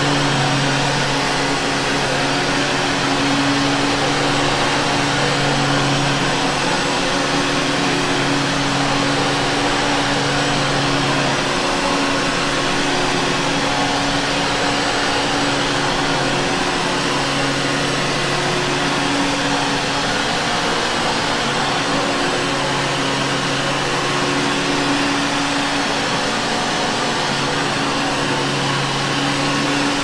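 Vintage Hoover Caddy upright vacuum cleaner running steadily as it is pushed and pulled over carpet, a low hum in its motor note swelling and fading every few seconds.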